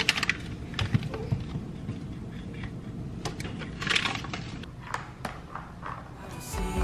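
Small oranges tumbling from a mesh bag into a wooden bowl and fruit being set down: scattered soft knocks and handling sounds, with a brief cluster of knocks about four seconds in.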